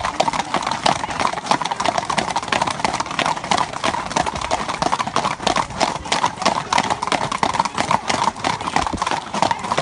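Horses' hooves clip-clopping, a quick, dense clatter of many hoof strikes that runs on without a break.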